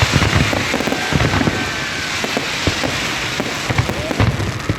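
Aerial fireworks crackling densely, like rain, with many deep booms of bursting shells mixed in.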